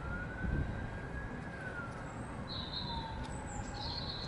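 Faint siren wailing, its pitch slowly rising and then falling, over a low steady background rumble. A bird gives two short high chirps in the second half.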